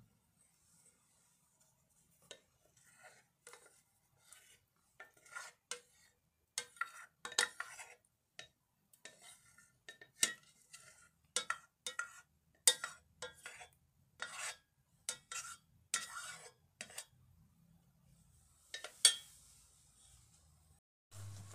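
A metal spoon scraping and clinking against a metal pot in many short, irregular strokes as thick sauce is scraped out, with one sharp clink near the end.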